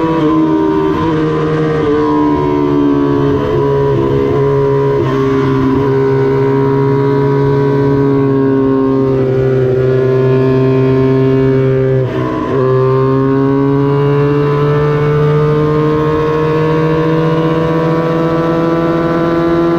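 Small-displacement vintage Honda parallel-twin racing motorcycle engine running hard at high revs, with a brief break in the note about twelve seconds in as it changes gear, after which the revs climb steadily.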